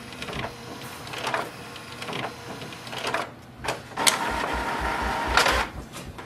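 HP Envy 6155e inkjet printer's mechanism working as it prints the printhead alignment page: a series of short whirring strokes, then a louder steady motor run from about four seconds in for about a second and a half.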